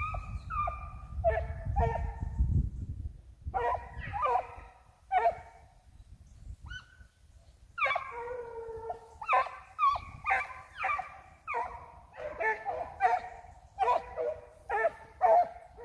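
Petits bassets griffons vendéens giving tongue on a rabbit's line: a run of short, high yelping bays, some overlapping, with a brief lull about six seconds in.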